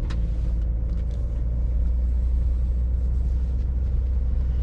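Steady low rumble inside a BMW X5's cabin while driving: engine and road noise, with a faint steady hum above it and a few faint clicks.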